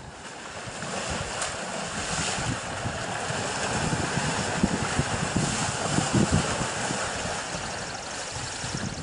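Asian elephants wading and splashing through pond water, a steady churning wash of water. Wind buffets the microphone underneath with an uneven low rumble.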